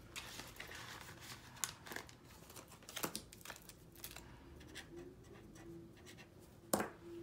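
Faint rustling and crinkling of paper dollar bills and clear plastic zipper binder pouches as cash is handled, with a marker scratching on a paper tracker sheet and a sharp click a little before the end.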